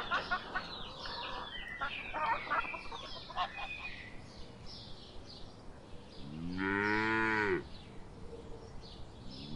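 A rooster clucking in short calls for the first few seconds, then a cow mooing once, a single long moo of about a second and a half that rises in pitch at its start, about six seconds in. Faint bird chirps sound in the background.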